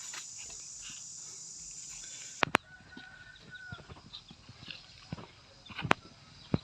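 Steady high-pitched outdoor hiss that cuts off abruptly about two and a half seconds in with a pair of sharp clicks. After it come faint short chirps and scattered light clicks and knocks, with one sharper click near the end.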